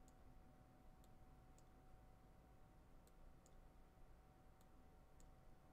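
Near silence broken by faint, scattered computer-mouse clicks, about eight at uneven intervals, over a faint steady whine.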